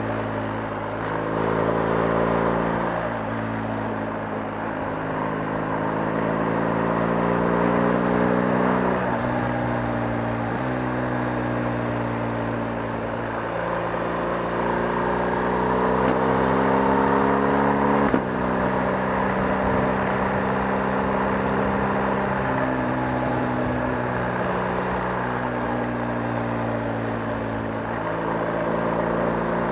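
BMW R 1250 GS boxer-twin engine running under way. Its note climbs steadily and then drops back every few seconds, as with upshifts through the gears, and there is a short click about two thirds of the way through.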